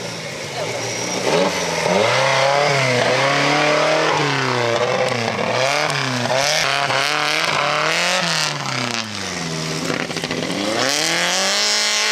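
Trophy-class off-road buggy's engine revving hard in repeated surges, the pitch climbing and dropping every second or so as the driver works the throttle up a steep dirt climb. Spectators' voices are faint beneath it.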